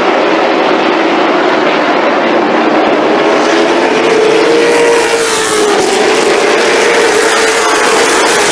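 Late model stock cars' V8 engines at racing speed on a paved oval. The sound grows louder and brighter as the pack approaches, and the pitch drops a little as the cars sweep past about halfway through.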